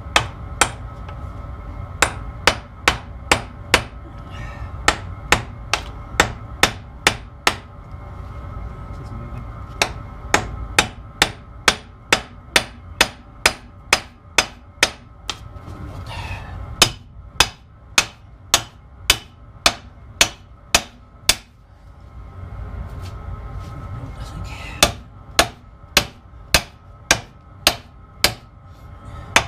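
Hammer blows on steel, driving a seized pivot pin out of a backhoe landing-leg bracket: runs of sharp strikes about two to three a second, broken by short pauses, with the metal ringing under them.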